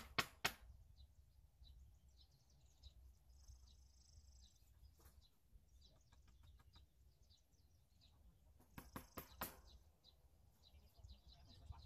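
Faint outdoor quiet with sparse bird chirps over a low steady rumble. It is broken by a quick run of sharp knocks right at the start and another cluster of knocks about three quarters of the way through.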